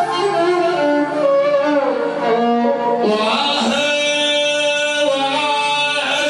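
Iraqi song: a melody with sliding, ornamented notes over accompaniment. It grows fuller and brighter about halfway through.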